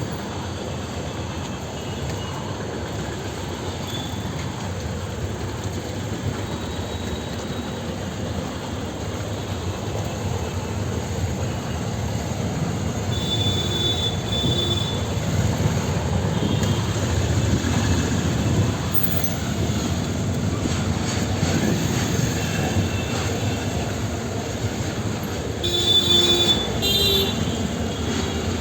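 Steady rumble of heavy vehicle noise that grows somewhat louder partway through, with a short horn-like tone twice, about halfway through and again near the end.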